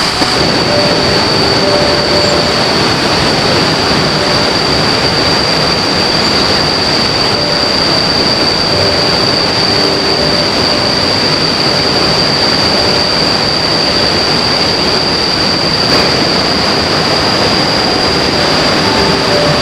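River water rushing steadily, a loud even wash of noise, with a constant high-pitched whine over it.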